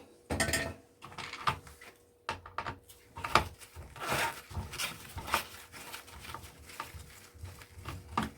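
Irregular clicks, knocks and scrapes of hands working on a projector's plastic housing while taking its lens out.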